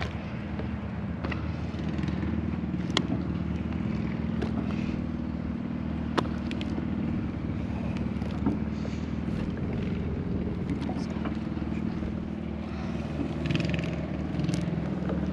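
An engine running steadily at an even pitch, with a few sharp clicks over it.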